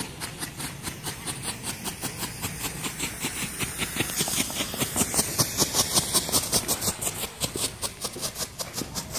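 Firework strobe pot flashing, each flash a sharp pop or snap in a rapid, even rhythm of several a second. A smoke device hisses underneath, loudest about halfway through.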